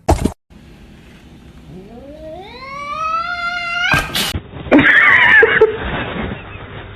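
A cat gives one long yowl that rises steadily in pitch over about two seconds. A sudden sharp crack follows, then a loud, harsh, noisy outburst lasting about a second.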